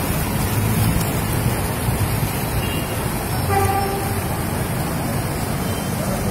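Steady rushing noise of floodwater pouring across a street. A vehicle horn gives one short toot about three and a half seconds in.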